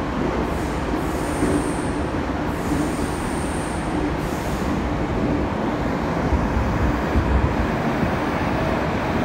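Meitetsu 100 series electric train running between stations, heard from inside the car: a steady rumble of wheels on rail and running gear. A faint high-pitched tone comes in twice in the first few seconds.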